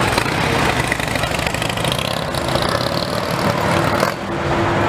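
Motor vehicle engines running close by in street traffic, among them a police Harley-Davidson motorcycle's engine.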